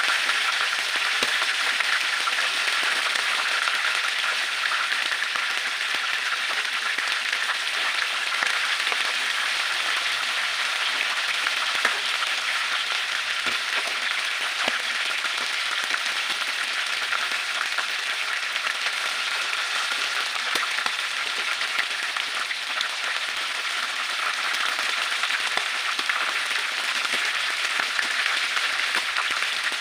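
Battered and whole squid frying in hot oil in a pan: a steady crackling sizzle with scattered sharp pops.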